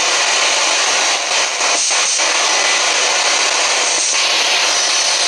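Handheld spirit box sweeping through radio frequencies: a loud, steady rush of radio static, broken by a few brief gaps.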